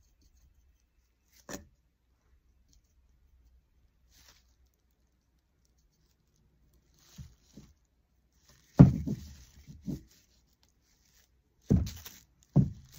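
Handling noises of a glass bottle on a plastic-covered craft table: a single knock early, then clusters of short thuds and rustles near the end.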